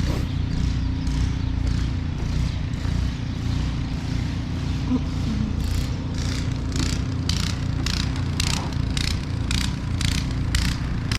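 Footsteps crunching in snow at about two steps a second, growing louder in the second half, over the steady drone of a snowblower engine running.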